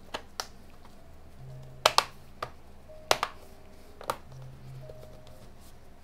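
Plastic case clips of a handheld OBD2 scan tool's back housing snapping into place as hands press the cover down: a string of sharp clicks, the loudest in two quick pairs about two and three seconds in.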